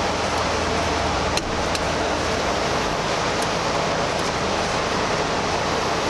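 Steady rushing background noise, with two light clicks about a second and a half in from hands working the negative battery terminal and its cable.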